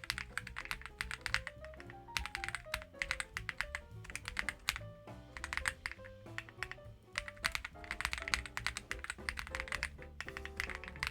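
Fast typing on a Reborn67 gasket-mounted mechanical keyboard, a dense run of keystroke clicks, over background music with a stepping melody.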